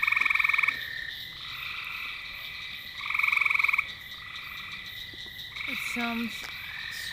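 Frogs calling in chorus: a series of short pulsed trills, each under a second long, the loudest near the start and about three seconds in, with softer answering trills between, over a steady high-pitched drone.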